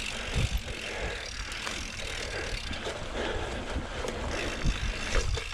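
Mountain bike rolling down a dirt singletrack descent: steady tyre noise with irregular knocks and rattles as the bike goes over bumps.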